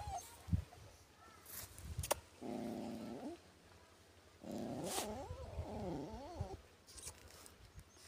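Injured puppy whimpering: a low moan lasting about a second, then a longer wavering whine that rises and falls, about two seconds later.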